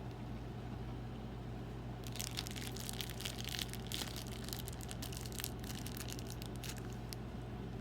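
Close-miked mukbang eating sounds: a dense run of crackling and crunching from about two seconds in until about seven seconds, over a steady low hum.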